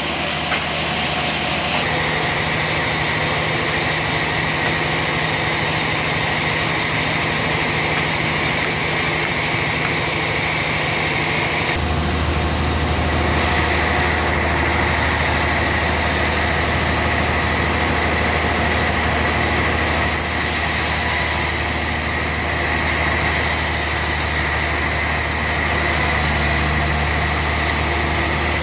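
An engine running steadily at idle with a low hum, its sound changing abruptly a few times as clips cut together.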